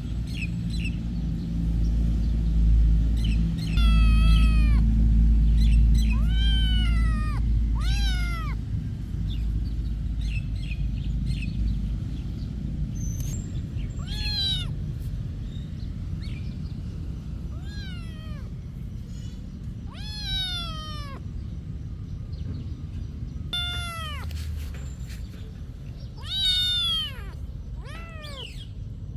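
A cat meowing repeatedly, about nine separate meows, each rising and then falling in pitch, with a low rumble underneath during the first half.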